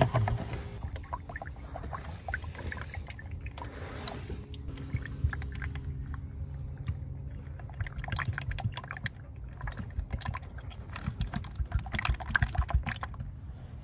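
Motor oil glugging as it is poured from a plastic jug through a funnel into an engine's oil filler: irregular gurgles and clicks, busiest near the end, over a low steady rumble.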